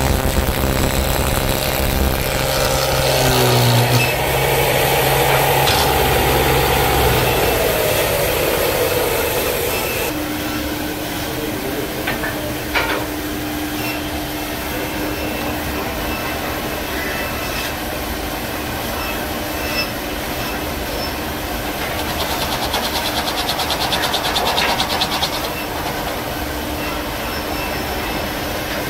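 Electric woodworking machines cutting wood. First a spindle cutter shapes a wooden spoon blank, its motor note dropping as the cutter bites. Then, after an abrupt change, a motor hums steadily while a swing-arm cutter hollows a spoon bowl, with a stretch of fast, rasping cutting a few seconds before the end.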